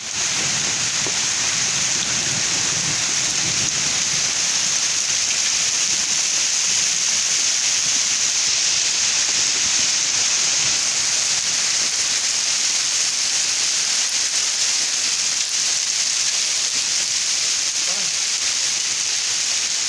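Floodwater rushing in a stream swollen by rain: a steady, unbroken hiss of fast-moving water.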